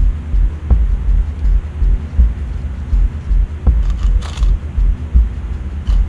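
Small bolts clinking in a plastic cup as a hand digs through them, about four seconds in and again near the end, with a few light clicks before. Under them runs a loud, uneven low rumble.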